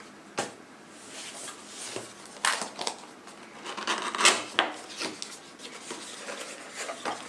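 Cardboard box and paper packing being opened and handled: rustling and scraping with a few sharp clicks and taps, the loudest about four seconds in.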